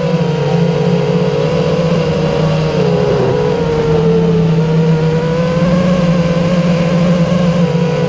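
A steady, engine-like motor hum with an even pitch that dips slightly about three seconds in.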